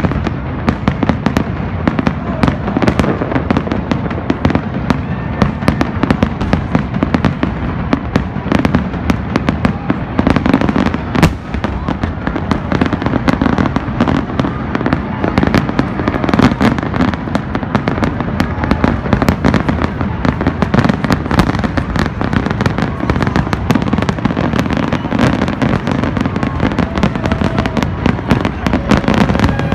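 Aerial fireworks shells bursting in a dense, unbroken barrage of bangs and crackles, many a second, with one especially sharp bang about eleven seconds in.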